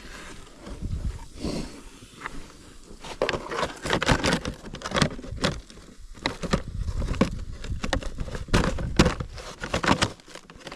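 Irregular crunching and knocking from footsteps in snow and the handling of broken plastic ATV body parts, over a low rumble of wind on the microphone.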